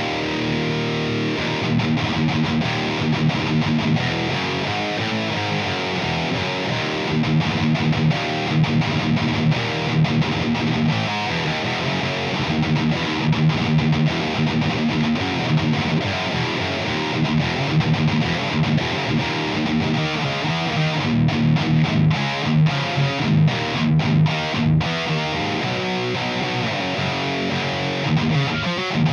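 High-gain distorted electric guitar riffing through a Diezel VH4 amp simulation, amp and cabinet only with no pedal or effects, from an ESP LTD guitar tuned to E flat. The riff cuts off sharply a few times about three quarters of the way through.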